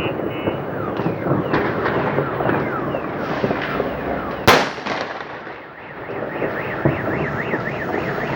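New Year fireworks going off all around in dense, overlapping pops and crackles with short falling whistles, and one loud sharp bang about four and a half seconds in. From about six seconds a car alarm wails up and down over the crackling.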